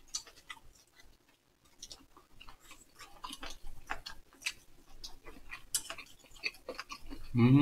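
Close-up eating sounds: irregular wet clicks and smacks of people chewing food, quiet for the first couple of seconds and then coming thick and fast.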